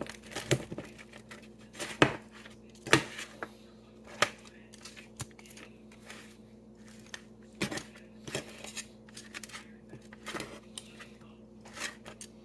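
Kitchen utensils knocking and scraping on a hard surface as cooked baby back ribs are cut and pulled apart: a string of separate sharp clicks and knocks, a second or two apart, over a faint steady hum.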